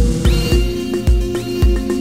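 Background music with a steady beat, a little under two beats a second, under held chords; a new chord comes in at the start.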